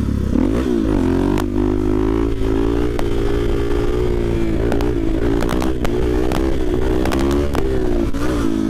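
Suzuki DR-Z400SM single-cylinder four-stroke engine running under way. The revs dip and climb again about half a second in, hold fairly steady with small rises and falls, and ease off near the end. A few sharp clicks sound over it.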